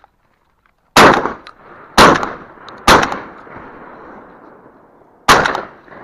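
Four shotgun shots fired at partridges, three in quick succession about a second apart and a fourth a couple of seconds later. Each shot is followed by a long echo.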